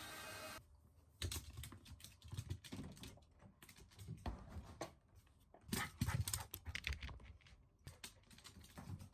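A steady hiss, like a hair dryer blowing, cuts off about half a second in. Then come irregular light clicks and taps with soft thumps as a Shiba Inu moves about.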